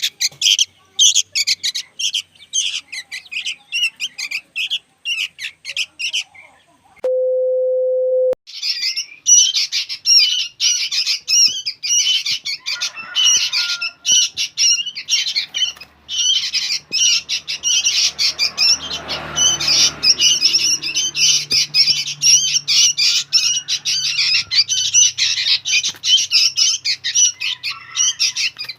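Young sooty-headed bulbuls (kutilang) calling noisily, a fast, unbroken run of high chirps and squawks. About seven seconds in the calls stop briefly and a steady beep tone sounds for about a second before the chirping resumes.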